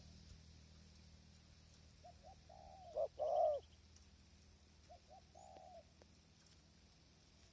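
Spotted dove cooing: a phrase of short low coos rising to a louder drawn-out coo about three seconds in, then a fainter phrase about five seconds in.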